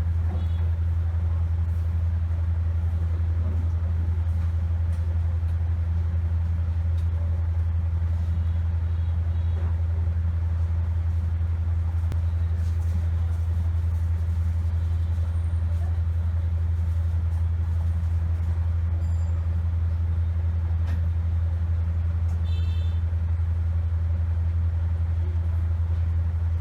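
A steady low hum throughout, with faint scattered clicks and ticks above it.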